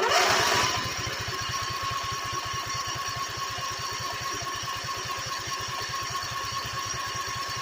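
Two-cylinder small engine catching and running steadily on its freshly cleaned and reinstalled carburetor, a little louder for the first second, then settling into an even run of fast pulses with a steady high whine over it.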